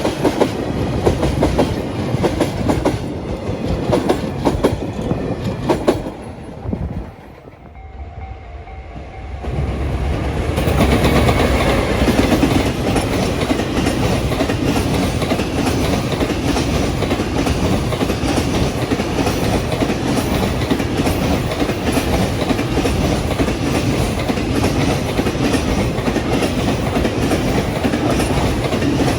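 Train passing over a level crossing, its wheels clacking over rail joints as the cars roll by. The noise drops away briefly about seven seconds in, then a train comes through again with loud, steady rolling noise from about ten seconds on.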